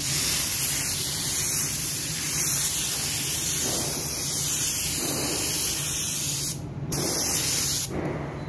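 Compressed-air paint spray gun hissing steadily while laying down the first coat of clear coat. The hiss breaks off briefly twice near the end. A steady low hum runs underneath.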